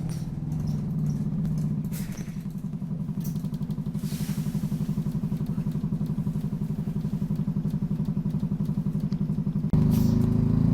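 Optare Solo bus diesel engine running at idle with a steady, even pulse. A short hiss of air comes about four seconds in. Near the end the engine suddenly gets louder as it takes power.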